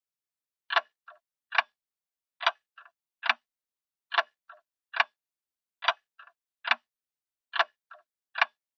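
Sharp clicks in a repeating pattern of three, a loud click, a faint one and another loud one, with the group coming back about every 1.7 seconds, five times over, with silence between.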